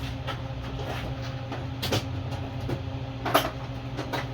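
Light clicks and knocks of small objects being handled and set down, the two loudest about 2 and 3.4 seconds in, over a steady mechanical hum.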